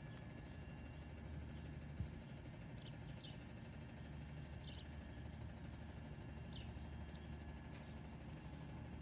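Garbage truck engine running steadily as a low, faint drone, with a few short bird chirps over it and a single sharp click about two seconds in.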